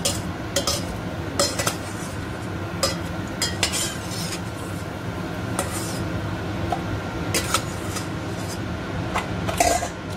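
A slotted metal spatula clinking and scraping against a stainless steel pot as crackers are turned and lifted out of hot oil, in irregular strokes with a louder scrape near the end. Under it runs a steady hum, likely the kitchen extractor hood.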